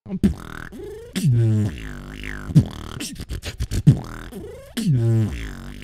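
Beatboxing into a microphone: sharp vocal drum hits and clicks, a quick run of clicks about halfway through, and hummed bass notes that bend in pitch.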